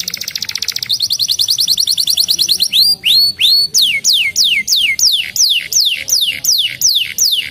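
Canary singing: a very fast rolling trill for the first couple of seconds, two short rising notes about three seconds in, then a run of repeated downward-sweeping whistled notes at about three a second.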